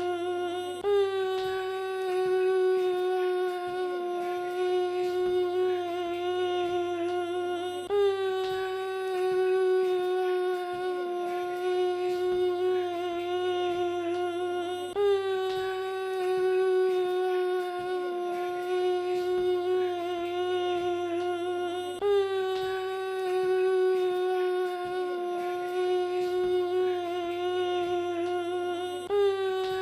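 Vocoder sound effect: one synthetic held note with a rich stack of overtones. It restarts about every seven seconds, dipping slightly in pitch at each restart, as a repeating loop.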